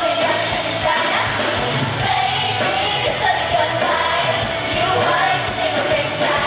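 Live pop song played loud through a concert PA: a woman singing over a steady beat and bass line.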